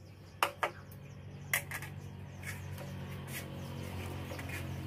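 Chopsticks clicking against a metal wok and china plates as food is picked up, a few light clicks in the first couple of seconds and fainter ones later, over a low steady hum.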